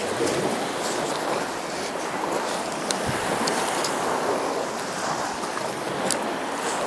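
Steady rush of waves washing onto the Lake Ontario shore, with a few faint ticks over it.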